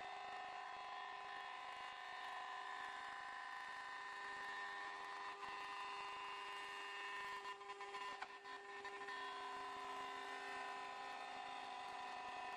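5-axis CNC router's spindle running with a steady whine of several held tones while it machines a curved wooden furniture part, with a brief scatter of faint clicks about two-thirds of the way through.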